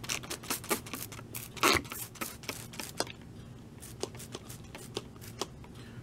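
Trigger spray bottle of wet water squirting in many quick, short bursts, with one longer, louder spray a little under two seconds in, wetting ground foam scenery.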